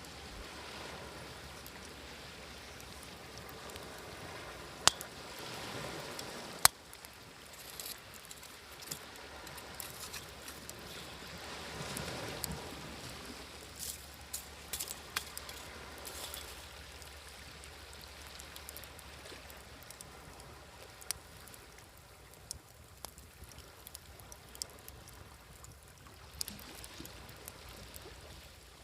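Wood fire crackling with scattered sharp pops, two louder ones about five and six and a half seconds in and a flurry a little later, over small waves washing in and drawing back.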